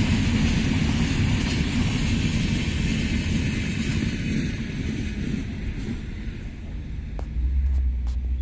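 An express train's coaches rumble along the rails as the train moves away, the rolling noise fading slowly over about six seconds. Near the end a steady low rumble comes up.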